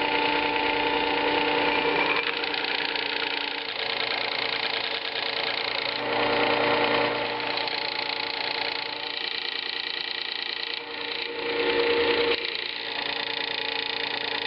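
Electric sharpener's motor running steadily while a steel chisel is ground on its coarse 120-grit abrasive, a rough grinding noise over the motor hum. The grinding swells twice, about six and twelve seconds in, as the chisel is pressed and worked.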